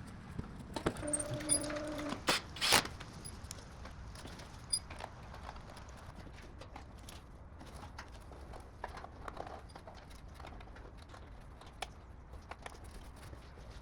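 Scattered small clicks and taps of screws and a hand tool being handled while screws are fitted back into plastic body panels, sharpest in the first three seconds, with a brief steady tone just after a second in.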